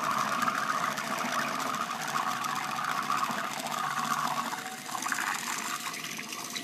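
Water churning and swirling in a glass, stirred into a large whirlpool by a toothed Lego sprocket spun by an electric motor.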